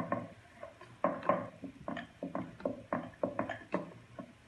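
Irregular light taps and knocks on a round chapati rolling board as a stuffed paratha is pressed and shaped by hand, with a wooden rolling pin in the other hand.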